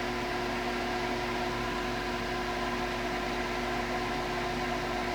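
Steady machine hum with several held tones over a light hiss, unchanging throughout.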